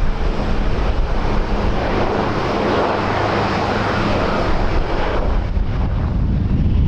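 Aircraft engines passing, a rushing sound that builds, peaks mid-way and fades after about five seconds, over heavy wind buffeting the microphone.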